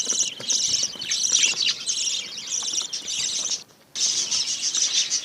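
A flock of budgerigars chattering and chirping in rapid, overlapping calls, with a short break about three and a half seconds in.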